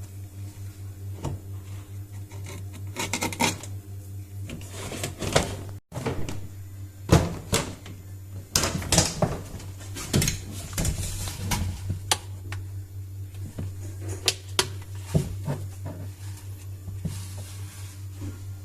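Washing machine spin-dryer motor humming steadily with irregular knocks and rattles over it, a strange noise from a spin tub that jams instead of turning.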